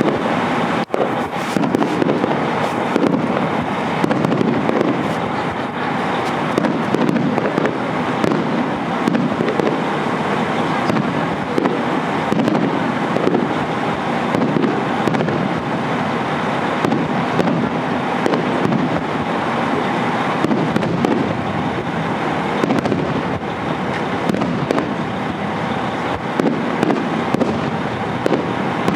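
Fireworks display going off continuously, many crackling and popping bursts overlapping with no pause.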